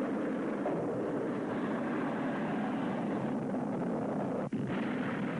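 RD-170 kerosene-oxygen rocket engines firing, a loud, steady rushing noise, with a momentary dropout about four and a half seconds in.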